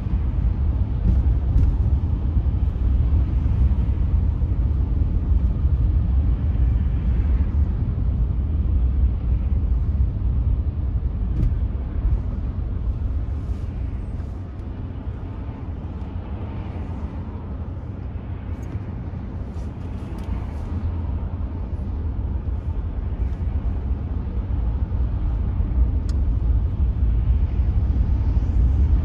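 Steady low road rumble of a car being driven on city streets, easing off a little midway and building again near the end.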